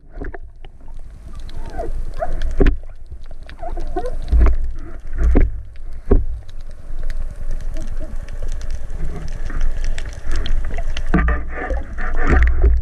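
Underwater GoPro audio: a muffled low rumble of water moving over the camera, with scattered sharp knocks and clicks as a speared dentex and the speargun are handled close to it.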